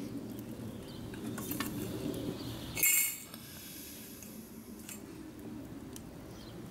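Small metal tin and lid clinking against a steel grill grate as they are gripped and moved with pliers. There are scattered light clinks and one louder metallic clatter about three seconds in.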